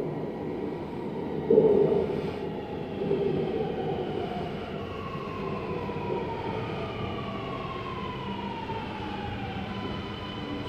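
A Sydney Metro Alstom Metropolis train is pulling into the platform and braking. Its electric traction whine sounds in several tones that fall steadily in pitch as it slows, over a steady running rumble. There is a short thump about one and a half seconds in.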